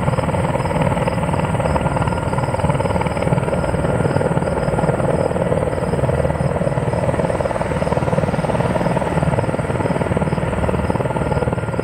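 Steady background music laid over the rotor noise of a hovering Sikorsky S-64 Skycrane (Erickson Air-Crane) heavy-lift helicopter.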